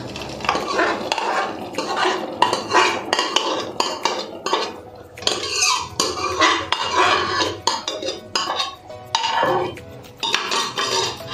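Cooked dal being poured out of an aluminium pressure cooker into a pot: irregular knocks and scrapes of metal on metal as the cooker is tipped against the pot's rim, with the thick dal slopping in and a spatula stirring through it.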